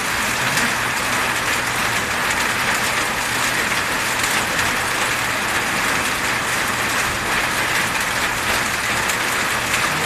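Steady rushing noise without rhythm or breaks, with a faint low hum underneath.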